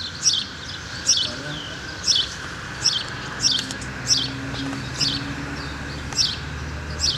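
A bird repeating a short, high chirp about once a second. A low steady hum joins in about three seconds in.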